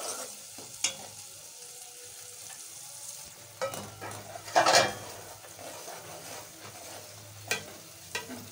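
Spice masala sizzling as it fries in oil in an aluminium pot, stirred with a steel ladle that scrapes and clinks against the pot a few times, loudest about four and a half seconds in.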